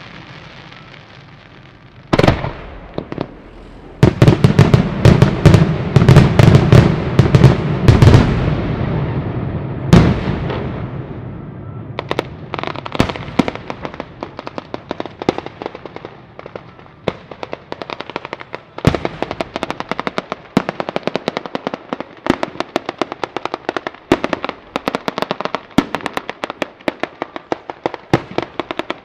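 Daytime ground battery of firecrackers going off: one sharp bang about two seconds in, then a dense volley of heavy bangs from about four to ten seconds in, the loudest part, then a long run of rapid crackling as chains of firecrackers burn along the field.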